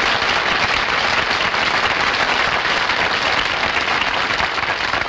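Studio audience applauding, a steady clatter of many hands that fades near the end.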